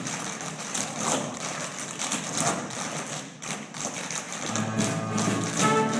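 Tap shoes tapping rapidly on a stage floor in an unaccompanied tap dance break; about four and a half seconds in, orchestral music comes back in under the taps.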